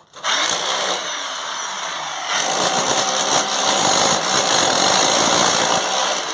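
A power tool running steadily with a high whine, getting louder about two seconds in as it takes on more load.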